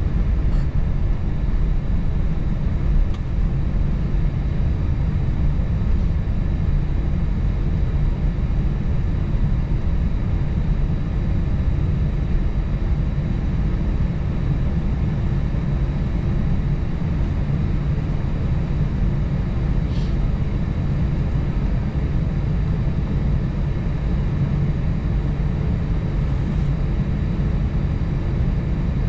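Airbus A320-family airliner cabin noise heard from a forward window seat: the engines and rushing air make a steady low rumble that holds constant, with a few faint clicks.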